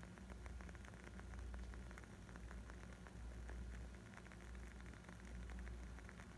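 Wood fire crackling: many small, irregular pops and snaps over a low, steady rumble.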